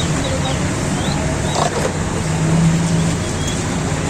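Street traffic noise: vehicle engines running with a steady low hum that grows louder for about a second midway, and faint voices in the background.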